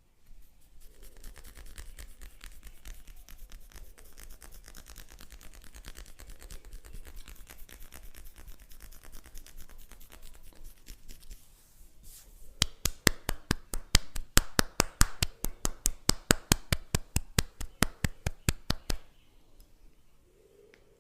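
Hands massaging a head: fast scratching and rubbing of the hair and scalp, then a run of sharp rhythmic slaps, about five a second for some six seconds, as the hands strike the head in tapping massage strokes.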